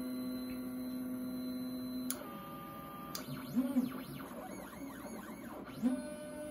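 Stepper motors of a LowRider 3 CNC plasma table driving the torch gantry on a dry-run cycle test with the torch off. A steady machine whine of several tones changes with a click about two seconds in and again about a second later. Then come rising and falling whines as the axes speed up and slow down.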